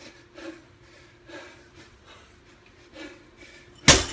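A person breathing hard in short, sharp breaths, about one every half second to second, from the exertion of a workout. A loud bang near the end.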